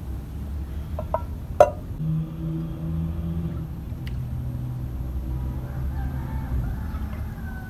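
A rooster crowing in the background. About a second and a half in, a sharp knock as a clay cup strikes the clay water pot.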